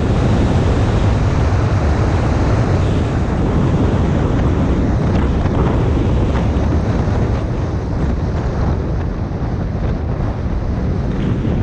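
Wind buffeting a GoPro's microphone: a loud, steady rush with a heavy low rumble and a few faint clicks.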